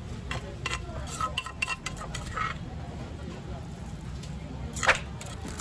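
Wooden pestle knocking and scraping against a clay mortar as shredded green papaya salad is tossed, a quick run of light knocks over the first couple of seconds. Near the end, one sharp crinkle, the loudest sound, as the salad is packed into a plastic bag, over a steady low hum.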